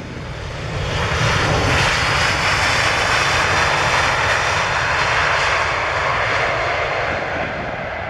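A Boeing 737's CFM56 jet engines as the airliner touches down and rolls out past. A steady jet roar swells about a second in and holds, with a high whine sliding down in pitch, then eases off near the end as the aircraft moves away.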